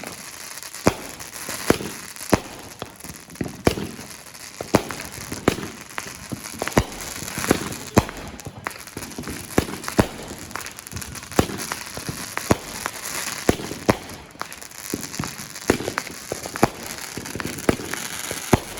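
Fireworks going off: many sharp bangs at irregular intervals, about one to two a second, over steady crackling.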